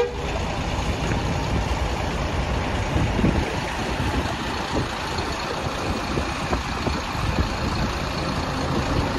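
Large bus engine idling, a steady low rumble.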